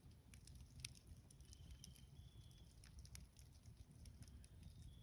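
Campfire crackling faintly: scattered soft ticks and pops over a low steady rumble. A faint high thin tone is heard twice.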